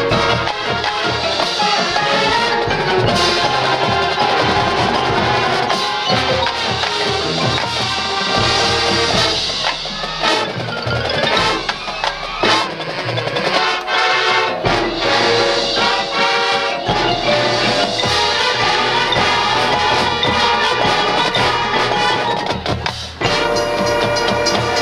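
High school marching band playing, with its percussion section prominent. Near the end the sound drops briefly before the full band comes back in.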